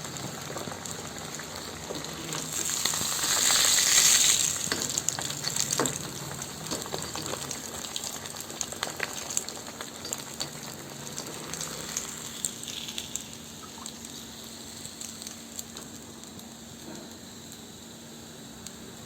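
Vavval (pomfret) fish frying in hot oil: a steady sizzle with sharp crackles and pops, swelling loudest about three to four seconds in, then settling to a quieter, even sizzle.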